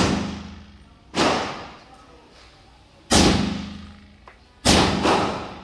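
A suppressed 5.56 mm M16 rifle firing single shots, each a sharp crack with a ringing tail. The shots come about two seconds apart at first, then two in quick succession near the end.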